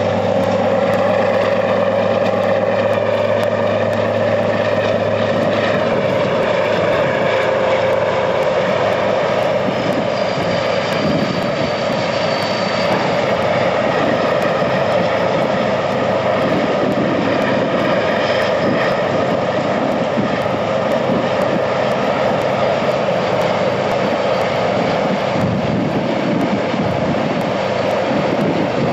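Recorded diesel engine sound for a model Monighan 10W dragline, running steadily with a deep, even drone; the pitched tones are clearest in the first few seconds before the sound turns rougher.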